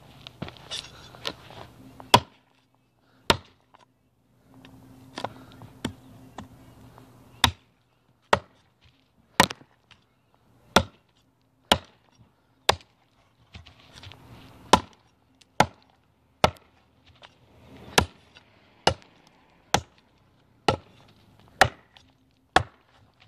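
TOPS El Chete, a quarter-inch-thick 1095 high-carbon steel cleaver-style chopper, hacking into a log: sharp woody thwacks, a few irregular at first, then settling into a steady beat of about one a second.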